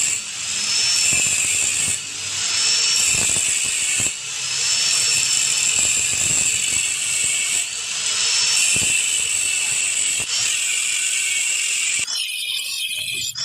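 Power tool working steel: a loud, high, hissing grind that comes in stretches of about two seconds, with brief dips between them.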